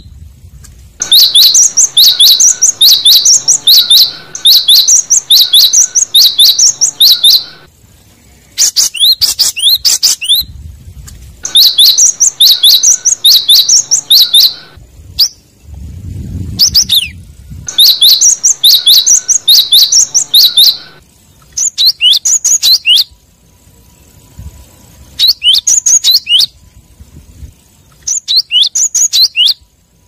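Gelatik batu (cinereous tit) singing: loud phrases of rapid, repeated high-pitched notes broken by short pauses, the phrases growing shorter and sparser toward the end. It is a territorial song used as a lure call to bring in rival birds.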